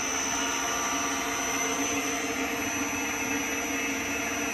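Laboratory double sigma-blade kneader mixer running at raised speed in reverse, its electric motor and hard-tooth gear reducer turning the blades: a steady hum with a thin high whine.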